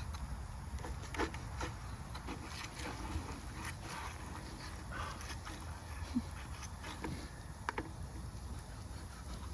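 Wood campfire crackling: scattered sharp pops and snaps over a low steady rumble.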